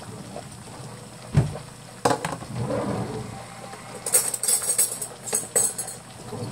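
Metal kitchen utensils and cookware knocking and clinking: a dull thump about a second and a half in, another knock, then several bursts of bright metallic clatter between about four and six seconds in.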